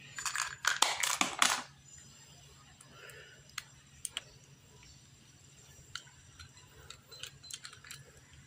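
Small plastic and metal clatter from handling bits in a plastic accessory case, strongest in the first second and a half, then scattered light clicks as a bit is fitted into the chuck of a mini rotary tool.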